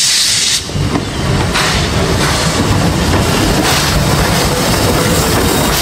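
Steam locomotive running on the rails. There is a hiss of steam in the first half second, then a steady low rumble.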